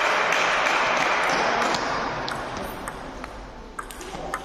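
A loud rush of noise that fades away over about two seconds, followed by a table tennis ball ticking lightly several times as it bounces on the table or floor.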